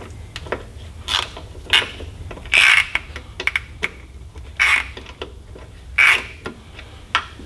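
Hand ratchet and socket working bolts loose on a diesel fuel primer pump, clicking in about five short bursts as the handle is swung back and forth.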